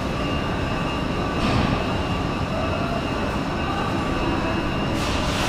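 Hohhot Metro Line 2 subway train standing at an underground platform, its onboard equipment running with a steady hum and a high-pitched whine. Two short hisses come through, about a second and a half in and near the end.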